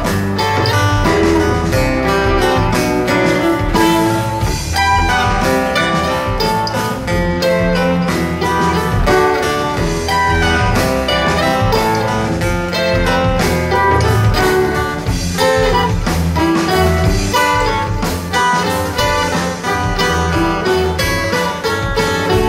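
A live jamgrass band playing a song, many instruments together over a steady drum beat.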